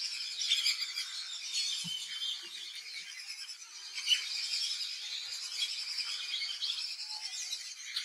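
A dense chorus of many birds chirping and calling together, with one louder chirp about four seconds in.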